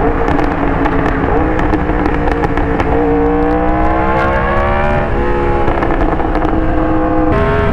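Yamaha R1 sportbike's inline-four engine under way: running steadily, then accelerating with a rising pitch for about two seconds. The pitch drops sharply on an upshift about five seconds in and again near the end.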